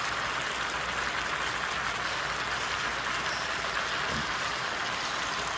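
Sliced chicken, onions and bell peppers sizzling in an electric skillet: a steady, even hiss.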